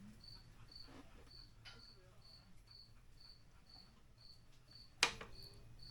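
A cricket chirping evenly, about two chirps a second, over a 3.7 Atlas inline-five engine being turned over by hand: a few faint knocks, then about five seconds in one sharp metallic knock with a short ring. This is the knock the owner likens to rod knock and thinks comes from the bottom end by the crank.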